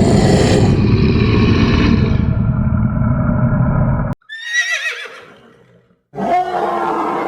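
Animal sound effects: a dense, low stampede rumble runs for about four seconds and cuts off suddenly. A horse whinny follows, wavering and falling in pitch. Near the end a big-cat roar begins.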